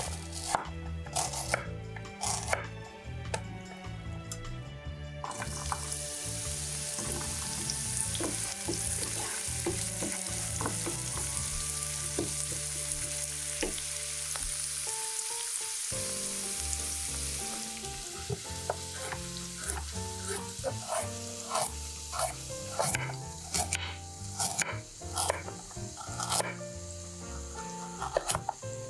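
A knife chopping onion on a wooden cutting board, then onion and garlic sizzling as they fry in oil in a pan, stirred with a wooden spatula. Later the knife starts chopping carrots on the board again in quick strokes while the sizzle fades, with soft background music underneath.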